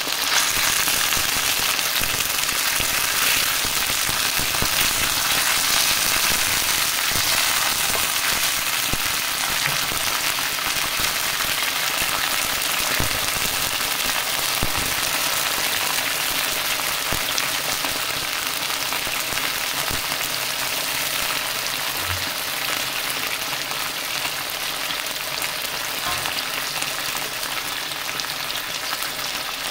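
Canned sardines in tomato sauce with onions and garlic sizzling in oil in a wok: a steady frying hiss that eases slightly toward the end, with a few faint knocks.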